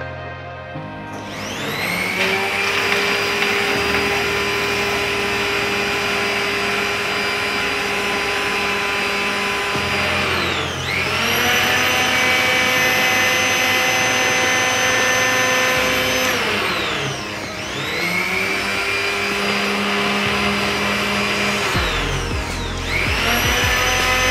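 FEM 3070 commutator motor of an electric F314 polypropylene drum pump running at a steady high whine, winding up about a second in, then winding down and straight back up three times.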